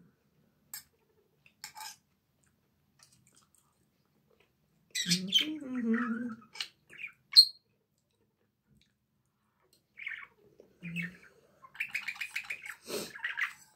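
A metal fork clicking and scraping in a stainless steel frying pan, with a few sharp taps, a brief high squeak about seven seconds in and a squeaky scraping run near the end. A short murmur of voice about five seconds in.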